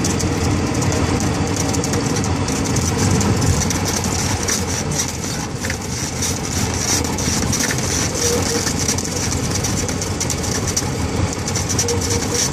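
Light single-engine propeller airplane's engine running steadily as the plane taxis.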